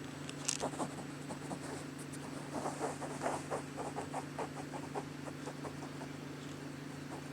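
A pet cat grooming: quick, soft, irregular licking clicks, several a second for about four seconds, over a steady low electrical hum.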